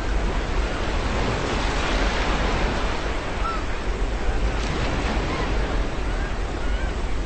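Ocean surf washing steadily onto the shore, one wave swelling about two seconds in, with faint short calls of seagulls here and there.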